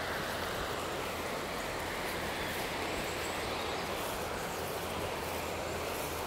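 Steady rushing outdoor background noise with no distinct events.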